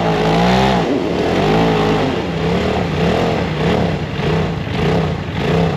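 Off-road vehicle engine revved up and down over and over, a longer rev in the first second and then shorter throttle blips about every 0.7 s.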